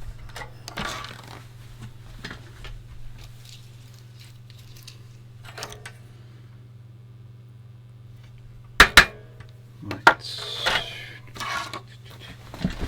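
Small metal clicks and taps of tools being handled at a workbench while desoldering, over a steady low hum, with two sharp loud clicks close together about nine seconds in and a few more clicks and a short scrape soon after.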